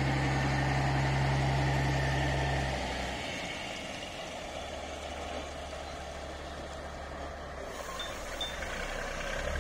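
Diesel engine of a semi-truck hauling a heavy load on a lowboy trailer, moving slowly past: a steady low engine drone that falls away about three seconds in as the truck pulls away, leaving a quieter rumble of engine and tyres.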